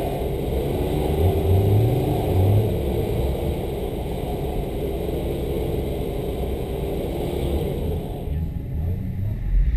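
A vehicle engine running steadily, rising briefly between about one and two and a half seconds in, with a slight drop near the end.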